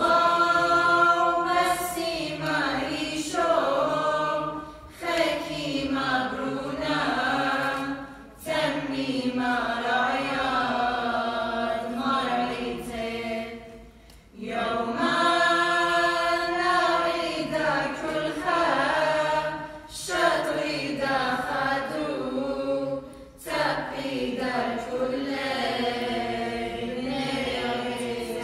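A small mixed choir of men's and women's voices singing an Assyrian Church of the East hymn unaccompanied, in sung phrases of a few seconds with short pauses for breath between them.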